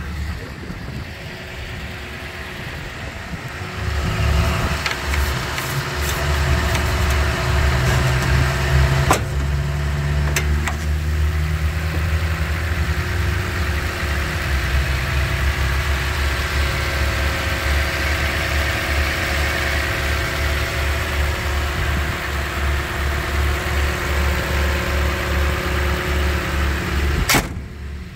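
2016 Toyota Tundra's i-Force V8 idling steadily with the hood open, a low even pulse that gets louder about four seconds in. A single sharp bang near the end.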